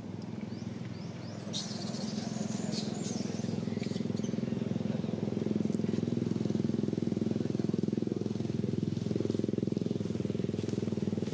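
A small engine running steadily, with a brief high hiss about two seconds in.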